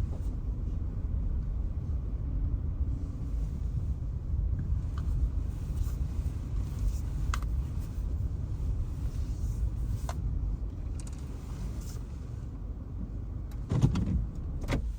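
Low, steady rumble of a car moving slowly, heard from inside the cabin, with a few faint clicks and a louder knock near the end.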